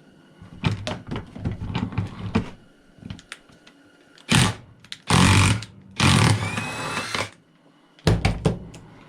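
Impact wrench run in bursts on a fastener: first some clattering of metal parts, then a quick blip and two longer hammering runs, the last with a rising motor whine, followed by a few sharp clicks.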